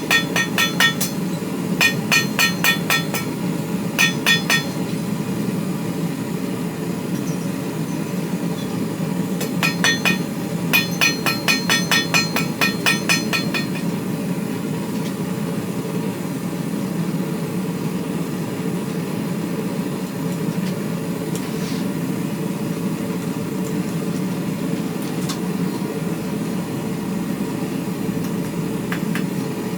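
Hand hammer striking hot steel on an anvil while forging a BBQ fork, in quick runs of ringing blows at about four a second, then stopping about halfway through. A steady low rushing noise runs underneath the whole time.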